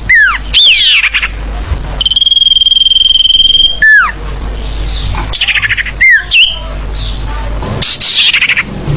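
Sirfu songbird calling: sharp downward-sweeping whistles, a long even high trill held for nearly two seconds, and quick rattling note series. This is a lure call (suara pikat) meant to bring wild birds down.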